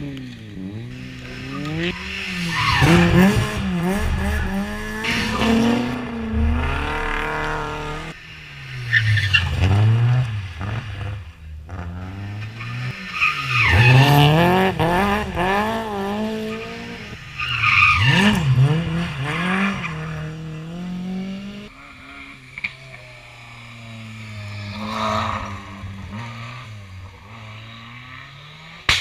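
Rally car engines revving hard, the pitch rising and falling through several pulls as the cars are driven flat out. The run gets quieter towards the end.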